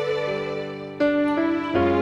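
Soft, slow background music, with sustained chords that change about a second in and again near the end.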